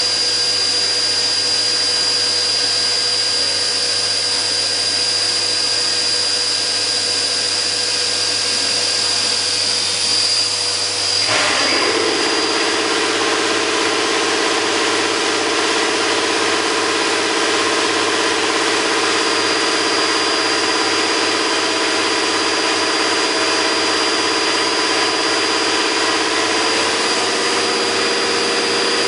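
Hurco VMX24 CNC vertical machining centre running as it machines a carburettor spacer: a steady loud machine noise with a high whine. About eleven seconds in the sound shifts. A tone glides down and settles into a lower steady hum.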